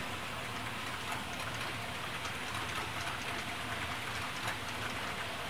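HO scale model train, two diesel locomotives pulling refrigerator cars, rolling along the track: a steady running rattle with faint irregular clicks of wheels over the rail.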